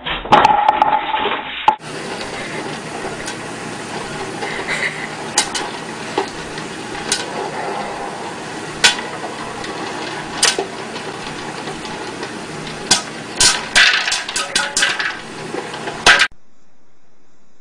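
Popcorn popping in an electric popcorn popper with a clear dome: a steady sizzle with sharp pops, sparse at first and coming thick and fast near the end. It is preceded by about two seconds of loud noise at the start, then cuts off suddenly.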